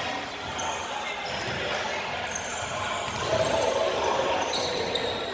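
Gymnasium crowd chatter with short high sneaker squeaks on the court floor; the crowd's voices swell a little louder a bit past halfway.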